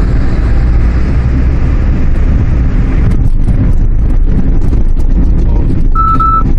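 Steady low rumble of a 2014 Chevrolet Spark driving on the road, heard from inside the cabin: engine, tyre and wind noise. A short steady beep sounds near the end.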